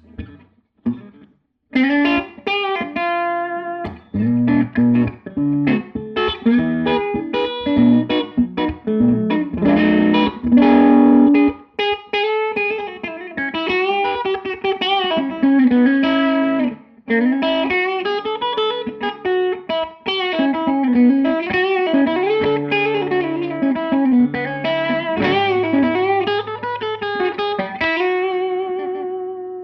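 Electric guitar played through a Tone King Gremlin tube amp on its rhythm channel. For about the first twelve seconds it plays struck chords and riffs, then single-note lines with string bends and vibrato.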